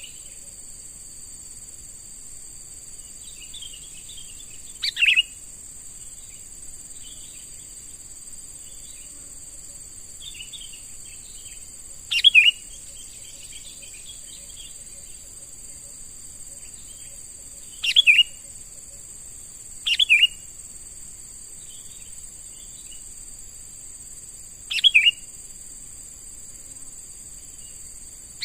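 Sooty-headed bulbul (kutilang) giving five loud, short calls several seconds apart, with softer twittering in between, over a steady high-pitched hum.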